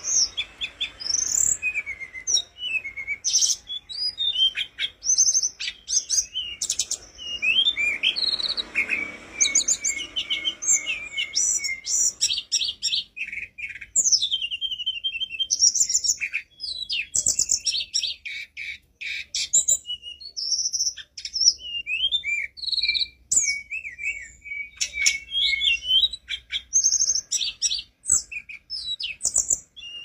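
Caged blue flycatcher (tledekan gunung) singing non-stop: a long, varied run of fast high whistles, trills and chirps with hardly a pause.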